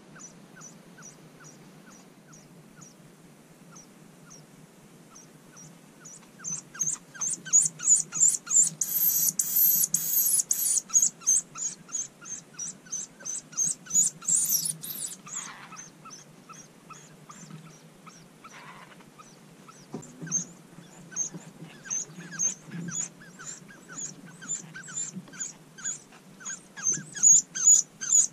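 Eurasian hoopoe nestlings begging from inside the nest cavity: short, high, squeaky calls repeated about two a second. For several seconds in the middle they turn loud and frantic, with a hissing rush, as the parent arrives with food. They then settle back into a steady rhythm.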